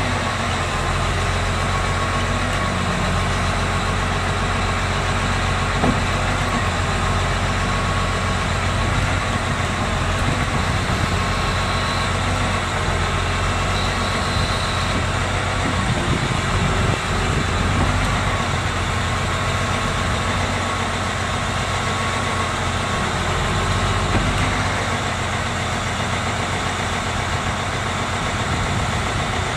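Diesel engine of a 2011 Bandit 4000T tracked stump grinder running steadily at idle: a low engine hum with a thin steady whine above it.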